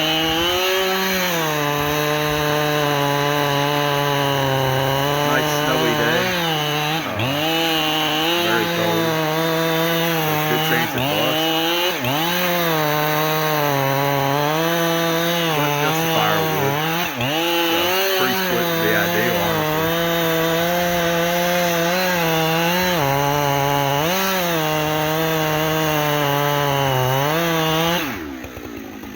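Two-stroke chainsaw running at high throttle while cutting into a tree. Its pitch sags and recovers again and again as the chain bites under load. About a second before the end the throttle is let off and the engine falls away toward idle.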